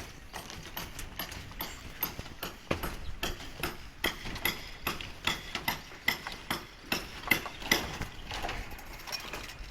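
A run of irregular hard knocks and clacks, a few each second, some with a short metallic ring, on a building site under construction.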